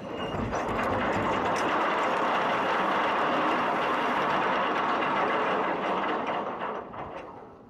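The SS Badger's bow anchor being let go, its chain rattling out from the hull and splashing into the water. The anchor is dropped to help swing the ship around. The rattle runs steadily for about six seconds and then dies away near the end.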